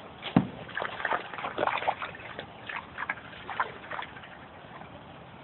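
Pool water splashing and sloshing as a wooden board is worked through it, with a sharp knock about half a second in and a run of short splashes over the next few seconds.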